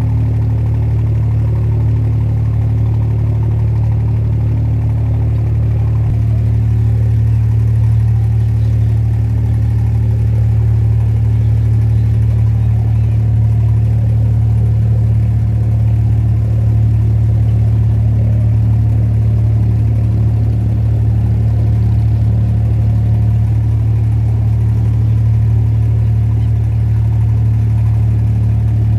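Inboard diesel engine of a wooden abra water taxi running steadily under way, heard from on board as a low drone that changes slightly about six seconds in.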